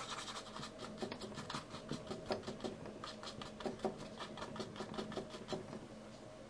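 Paintbrush scrubbing paint across the background of a painting in quick, repeated short strokes. The strokes stop about five and a half seconds in.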